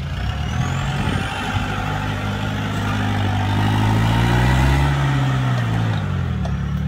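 Mitsubishi Pajero's turbodiesel engine pulling under load as the 4x4 climbs a steep grassy bank. The engine speed rises over the first few seconds, peaks a little before the end, then drops back.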